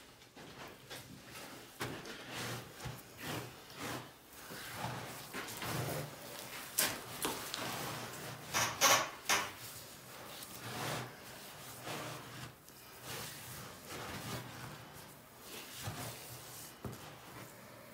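Irregular knocks, rubs and scrapes from hands at work, with a louder, longer scraping rush about nine seconds in.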